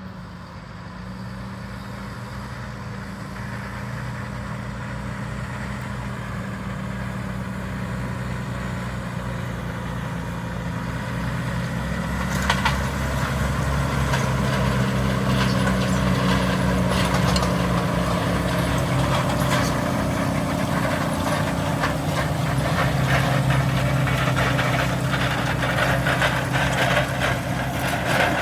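Valtra Q Series tractor's diesel engine pulling a five-furrow plough, its steady note growing louder over the first dozen seconds. A sharp knock comes about twelve seconds in, followed by frequent short crackles and rattles over the engine.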